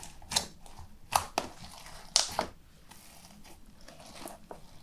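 Pink clear slime packed with bingsu beads being squeezed and kneaded by hand in a plastic tub: a run of sharp crackles in the first two and a half seconds, then fainter crackling.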